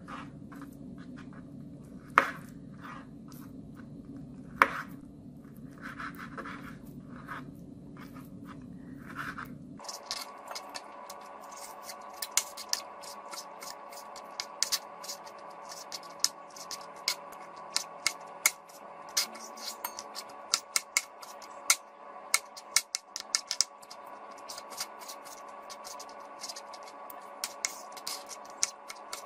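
Kitchen knife slicing raw fish fillet on a plastic cutting board, the blade clicking and scraping against the board. There are a few scattered strokes, two of them sharp and loud, for about ten seconds, then quick repeated strokes. A steady low hum under the first part stops about ten seconds in, replaced by a fainter, higher hum.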